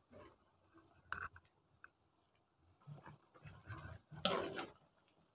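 A spoon scraping and stirring through coconut-milk curry in a large metal wok, in irregular strokes, the loudest about four seconds in.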